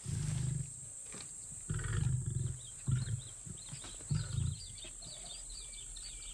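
Lions grunting: four short, deep grunts spread over the first four seconds or so. Faint bird chirps come in during the second half.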